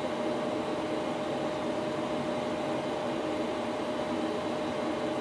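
Steady Boeing 737 flight-deck noise, heard inside the cockpit: engines at low power and air-conditioning airflow make an even hiss with a constant hum.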